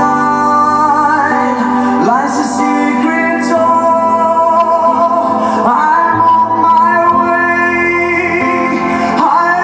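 Live band music with a singer holding long notes over sustained chords and bass.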